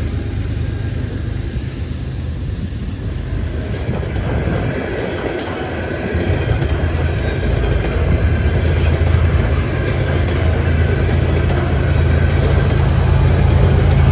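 Canadian Pacific grain train rumbling, with a steady low drone that grows louder as it approaches.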